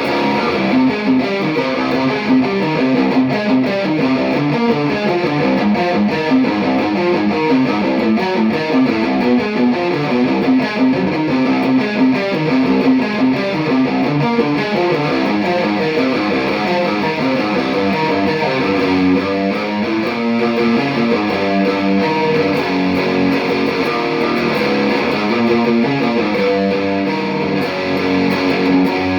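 Electric guitar played through a Mesa Boogie Mark V:25 amplifier: a continuous run of quick picked notes at a steady, loud level.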